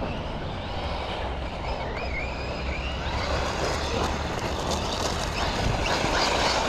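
Losi Lasernut U4 1/10 scale 4WD brushless RC rock racer driving: the electric motor's whine wavers with the throttle over a steady rush of tyre and drivetrain noise, growing louder near the end.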